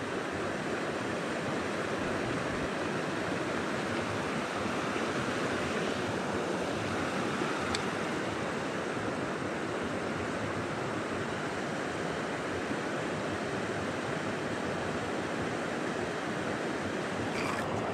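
Steady rush of a small stream's flowing water.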